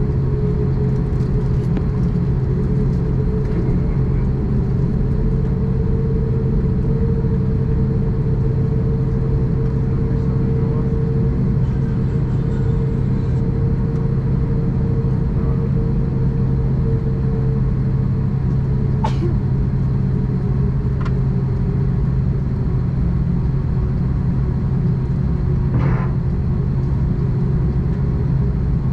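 Steady cabin drone of an Airbus A330-900neo with its Rolls-Royce Trent 7000 engines at low power: a deep even hum with a steady higher tone over it. Two brief clicks come in the second half.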